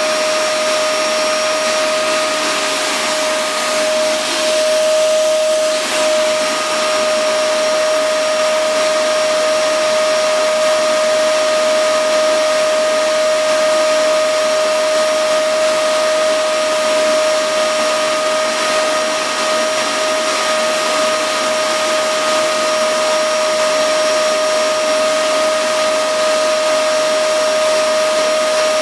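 Vacuum cleaner running with a steady whine, its bare hose drawing suction over a cat's fur.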